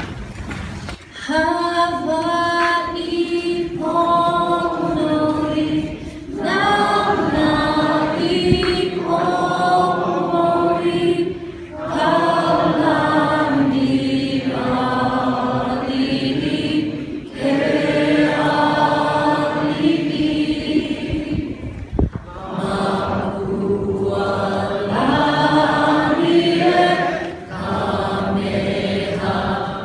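A group of people singing together without accompaniment, in phrases of about five seconds with short breaks between.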